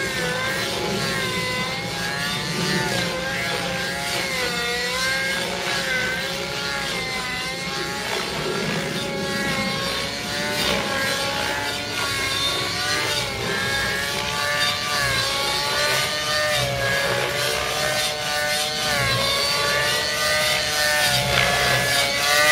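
Outrage Velocity 50 nitro RC helicopter flying aerobatics: its glow engine and rotor make a steady whine that rises and falls in pitch again and again as it manoeuvres.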